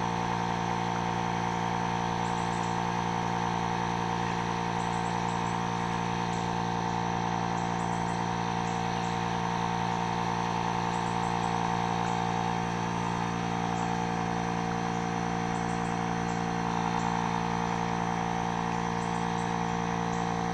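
Electric air pump for inflating a kayak, left running after the kayak is full, making a steady, even-pitched mechanical drone.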